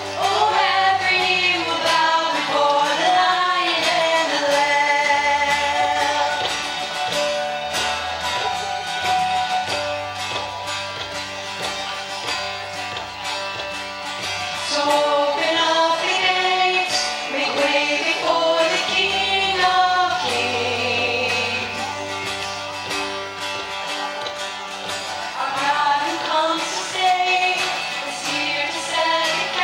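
Live worship band playing a song: a woman sings the lead melody over acoustic guitar, keyboard, bass guitar and drums.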